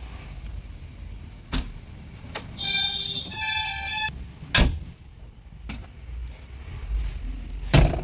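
A few sharp knocks, the loudest about halfway through and just before the end, over a low steady rumble, with a brief two-part high tone a little before the middle.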